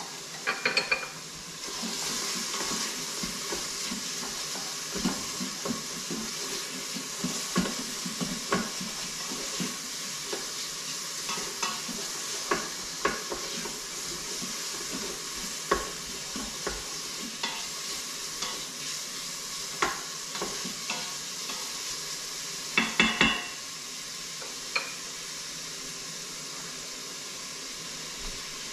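Chopped thick-cut bacon sizzling steadily as it renders and browns in an Instant Pot on its sauté setting, with a spoon clinking and scraping as it stirs, first the sauce liquid in a glass measuring cup and then the bacon in the stainless pot. A short clatter of knocks comes about three-quarters of the way through.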